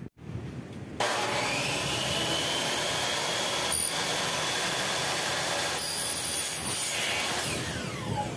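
Electric miter saw starting about a second in with a rising whine and cutting through an aluminum frame section, then winding down with a falling whine near the end.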